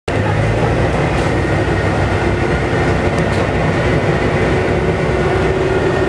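Volvo B7TL double-decker bus heard from inside the upper deck: its rear-mounted six-cylinder diesel and drivetrain running steadily on the move, a constant low rumble with a faint steady whine over it.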